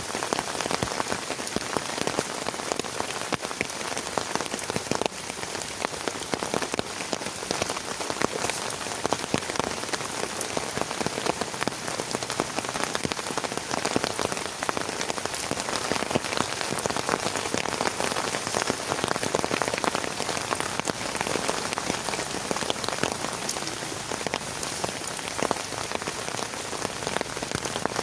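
Heavy rain falling steadily, a dense, even stream of drops striking close to the microphone.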